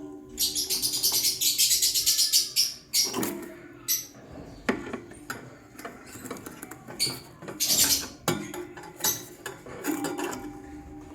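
Lovebirds calling: a long raspy chatter of rapid pulses in the first few seconds, then shorter harsh chirps and small clicks.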